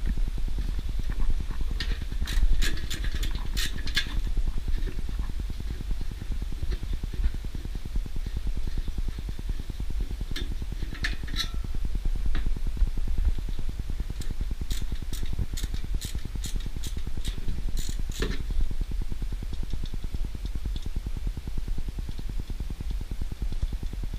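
Ratchet and 3/8 socket working screws loose on a small engine, making bursts of sharp metallic clicks and clinks in several clusters over a steady low hum.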